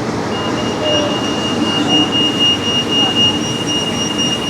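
Busy street ambience of traffic and crowd, with a steady high-pitched squeal or whine that starts about a third of a second in and holds without a break.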